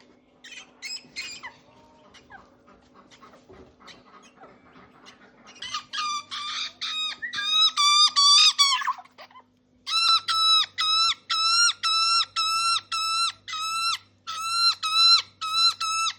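A magpie fledgling calling over and over: faint scattered chirps at first, then from about six seconds in loud, harsh, pitched calls repeated at roughly two a second. A faint steady hum runs underneath.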